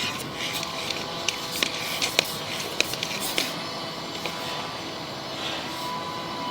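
Sewer inspection camera's push cable being worked back through the line and reel: a steady rubbing, scraping noise with irregular sharp clicks during the first half, over a faint steady electronic tone.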